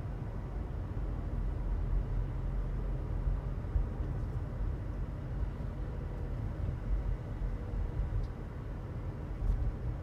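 Car road noise heard from inside the moving car: a steady low rumble of tyres and engine.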